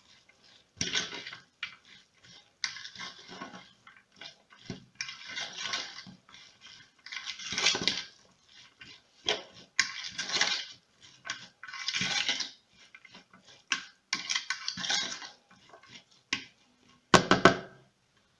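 A fork stirring wet chopped vegetables and tuna in a plastic bowl: a run of uneven scraping strokes, each about a second or less, with a louder knock near the end.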